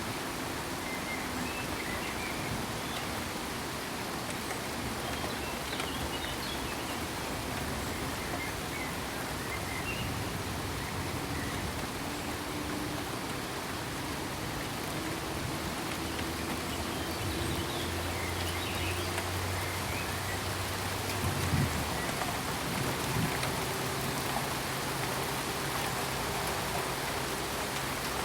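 Steady rain falling and pattering on surfaces, an even hiss throughout, with a couple of brief louder hits about three quarters of the way through.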